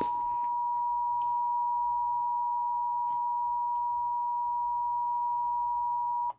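Emergency Alert System two-tone attention signal: a steady, unbroken two-note tone that cuts off abruptly just before the end. It announces the tornado warning voice message that follows.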